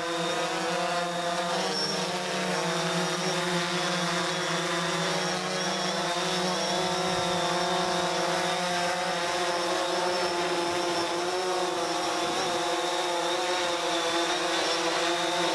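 DJI Phantom 4 quadcopter hovering low, its four propellers giving a steady buzz of several pitches that waver slightly as the motors adjust, while it eases lower.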